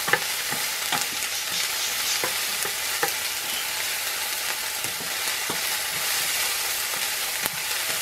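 Chopped onion and garlic sizzling in oil and butter in an enamel pan, stirred with a wooden spoon that clicks and scrapes against the pan now and then over a steady hiss.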